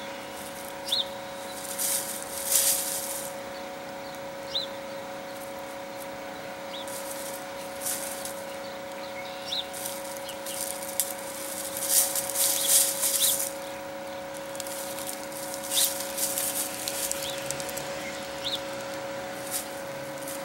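Hens scratching and pecking through dry leaf litter and straw: repeated bursts of rustling, loudest a couple of seconds in and again around twelve seconds in. Short high bird chirps recur every few seconds over a steady low hum.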